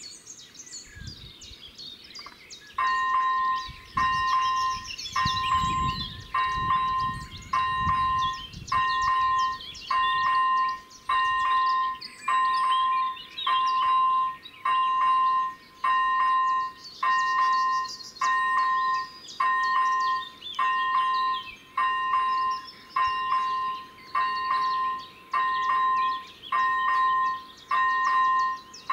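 Czech level-crossing warning bell ringing as the crossing activates for an approaching train: an electronic ding starts about three seconds in and repeats steadily about once a second. Birds chirp in the background.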